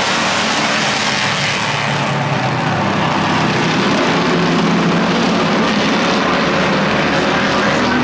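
A pack of pure stock race cars running at racing speed, their engines making a loud, steady drone.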